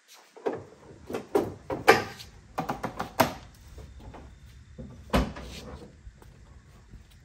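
A Jeep Grand Cherokee hood being taken off: metal hinge and panel clicks and knocks come in quick succession over the first three seconds, then one heavy clunk about five seconds in as the hood comes free.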